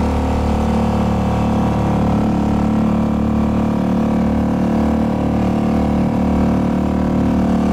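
Small outboard motor pushing an inflatable dinghy at a steady speed, its engine note holding even throughout. The propeller, whose slipping hub rubber has been patched with a rivet, is gripping and driving the boat.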